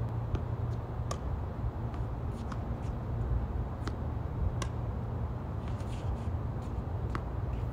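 Tennis rally on a hard court: sharp pops of racket strings meeting the ball and of the ball bouncing, every second or so, over a steady low rumble.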